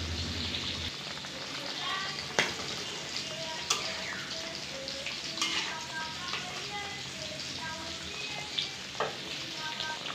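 Hilsa curry bubbling and spattering in a karahi as mustard paste is stirred in with a metal spoon, with a few sharp clicks of the spoon against the pan.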